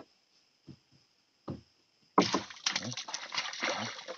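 A couple of faint knocks, then shallow river water splashing and sloshing for about two seconds, starting about two seconds in, as hands reach in to take the catch off a baited set line.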